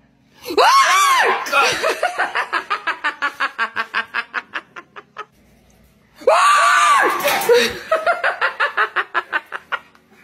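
A person gives a sharp, high-pitched startled scream at a jump scare, then breaks into a long run of rapid rhythmic laughter that fades out. A second scream about six seconds in is again followed by fading laughter.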